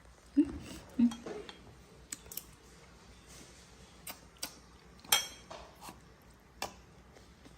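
Tableware clinking and knocking, such as a spoon against a feeding bowl or cup: about eight short, separate clinks at irregular intervals, the loudest in the first second and another about five seconds in.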